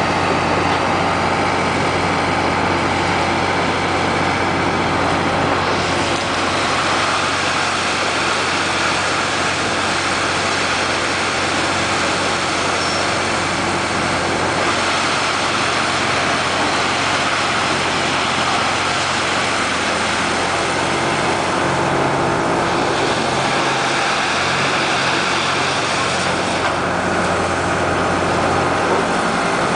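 Engine of a wheeled grapple log loader running steadily while it handles wood, its note shifting a few times in the last third.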